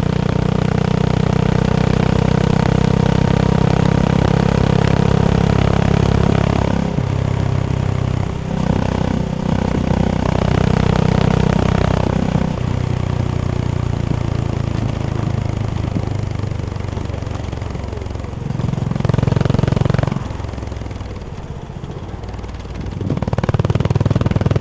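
Honda CB350 H'ness's air-cooled single-cylinder engine and exhaust running on the road. The engine note swells and eases as the throttle is worked: strong at first, softer through the middle, a short loud pull about three-quarters in, a dip, then pulling hard again near the end.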